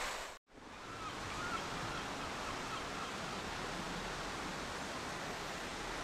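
Steady outdoor background noise, an even hiss, after a brief drop to silence about half a second in where the recording cuts.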